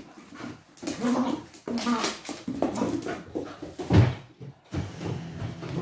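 Two puppies playing rough, whining and yapping in short irregular calls, with one loud sudden burst about four seconds in.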